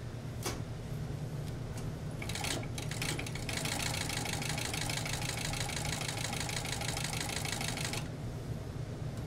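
Furrier's fur-sewing machine stitching the edges of mink fur: a click, a few stitches about two seconds in, then a fast, steady run of stitching for about four and a half seconds that stops suddenly near the end. A steady low hum lies under it throughout.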